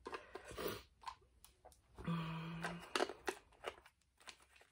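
A person blowing out smoke to cleanse rune pieces: one breathy exhale at the start and a second about two seconds in, with scattered light clicks of the small rune pieces being handled.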